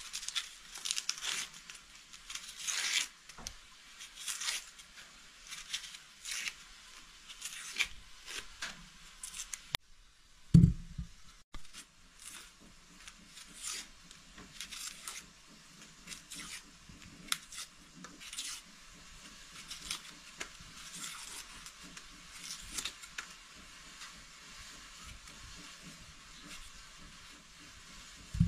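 Dry onion skins being peeled off with a small knife, crackling and tearing in a long run of short rustling strokes. A single dull knock about ten seconds in.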